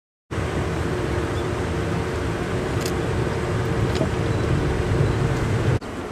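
Kintetsu electric train running, a steady low rumble with a steady hum over it. It starts abruptly and breaks off shortly before the end into a quieter stretch of the same kind of noise.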